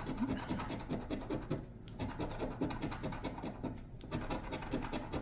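A coin scratching the coating off a lottery scratch ticket in rapid back-and-forth strokes, with short pauses about two seconds in and again near four seconds.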